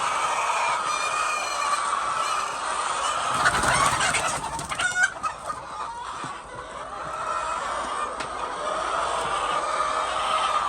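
A flock of chickens clucking together in a steady chatter, with louder, sharper calls standing out about four to five seconds in.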